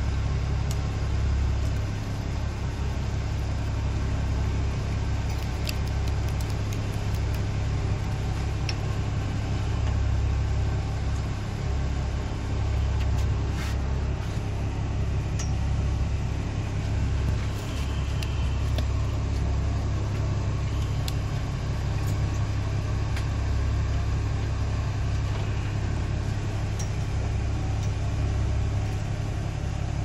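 Steady low drone of a fishing boat's engine idling, with a few faint clicks now and then.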